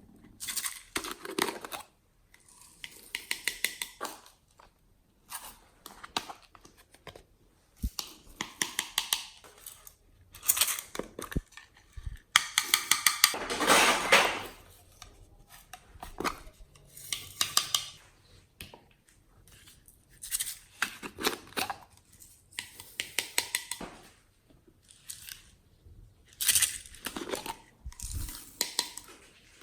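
Glossy slime being squeezed, folded and stretched by hand, giving repeated clusters of rapid wet clicks and pops with short pauses between.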